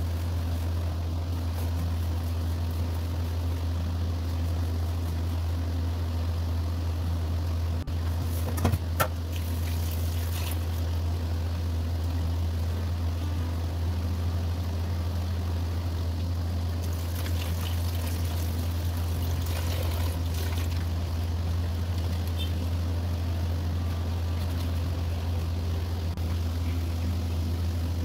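Water sloshing and splashing as small prawns are rubbed clean by hand in bowls of water in a steel sink, over a steady low hum. A couple of sharp metallic knocks come about nine seconds in.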